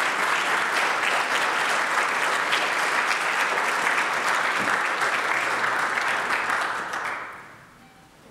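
Audience applauding, a steady round of clapping that dies away about seven seconds in.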